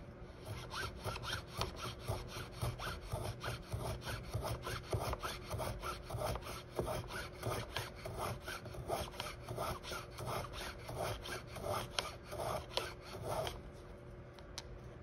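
Veritas miniature shooting plane being pushed back and forth along its shooting board, its blade shaving the edge of a small piece of basswood. A quick, even run of rasping strokes, about two a second, that stops near the end.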